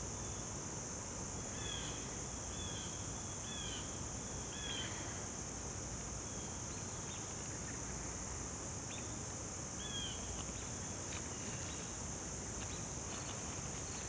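Steady high, shrill insect chorus of summer crickets or cicadas, unbroken throughout. Over it come a few short, high chirps: several in the first five seconds and one near ten seconds.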